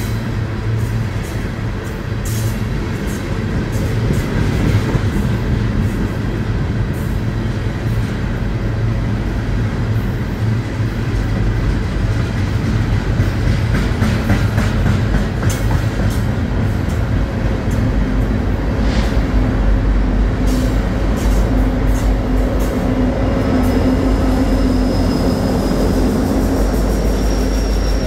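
Coal train hopper cars rolling past close by: a steady heavy rumble of wheels on rail with repeated clicks over the rail joints and a faint high wheel squeal late on. In the last ten seconds a steady diesel locomotive drone builds under it as a locomotive comes by.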